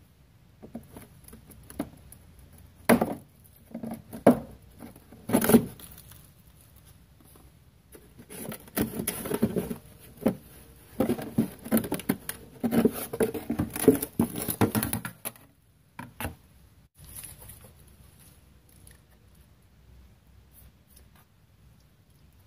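Hands working at a car's plastic wheel-well liner and rear suspension: a few sharp clicks and knocks, then a longer stretch of scratchy rustling and scraping in the middle, dying away to faint handling noises.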